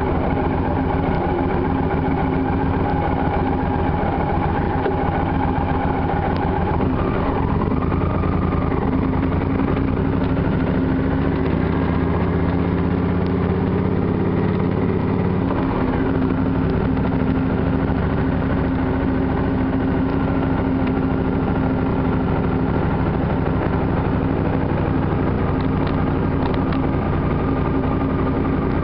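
Triumph Thunderbird motorcycle engine running steadily at low town speed while riding, its note shifting a little in the middle as the throttle changes.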